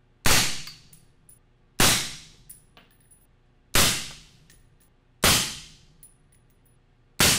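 Five suppressed 6.5 Creedmoor rifle shots through an AB Suppressor Raptor 7.62 six-stack suppressor on a 2-inch reflex mount, about one and a half to two seconds apart. Each is a sharp crack that dies away within half a second, and faint clicks follow some of them. Each shot meters about 131 to 133 dB peak at mid-gun.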